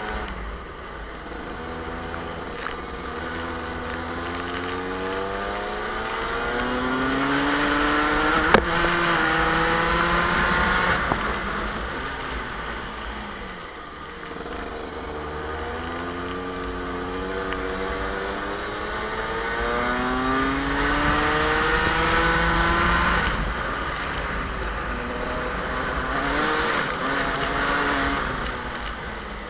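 Rotax two-stroke kart engine heard from the driver's seat, revving up along the straights and dropping revs into the corners, climbing and falling twice with a shorter rise near the end. A single sharp click sounds about eight and a half seconds in.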